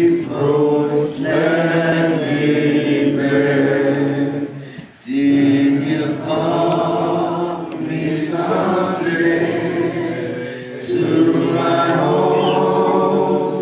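A group of voices singing a cappella in harmony, holding long notes in sustained phrases, with a brief pause about five seconds in.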